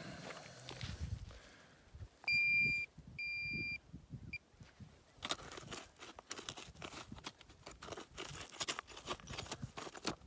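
Two short, steady high beeps from a metal detector, about two and three seconds in, signalling metal in the ground. From about five seconds on comes a run of crunching and scraping as a spade digs into ploughed soil.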